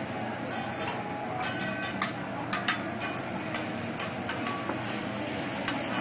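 Food sizzling on a hot hibachi steel griddle, a steady frying hiss, while a metal spatula scrapes and clacks against the plate several times.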